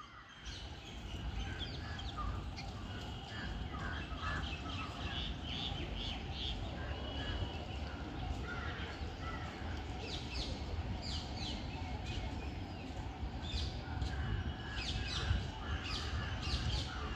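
Squirrels and birds calling in a tree: many short, high chirps in quick runs, some harsher calls among them, over a low rumble of wind.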